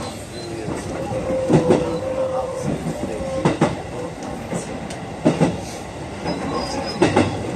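JR 221 series electric train running along the track, heard from inside the driver's cab. Its wheels clack over rail joints in quick groups about every two seconds. A faint steady tone rises over the running noise for a couple of seconds near the start.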